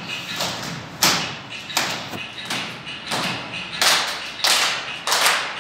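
Sharp percussive beats in a steady rhythm, about one every 0.7 s, each ringing briefly in a bare hall.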